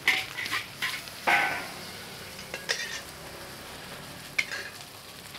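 Metal spatula scraping and knocking against a large wok as fried rice is stir-fried, over a steady sizzle. There are several sharp scrapes, the loudest about a second in.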